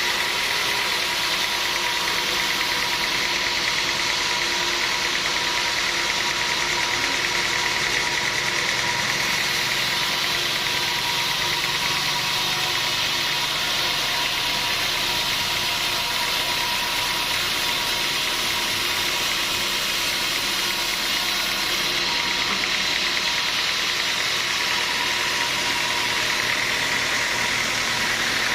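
Sawmill machinery running steadily, a constant mechanical noise with a high, unchanging whine.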